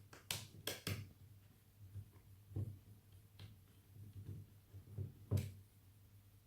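Scattered light clicks and taps of small metal screwdrivers being handled and fitted to a worn laptop screw: a quick cluster in the first second, then single taps about two and a half and five seconds in, over a low steady hum.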